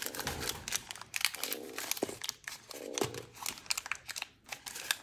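Plastic packaging of a toy blind bag crinkling and crackling irregularly as it is handled.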